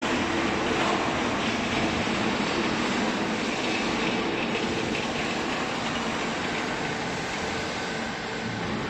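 Steady mechanical running noise of factory machinery, a continuous rumble and hum that eases off slightly near the end.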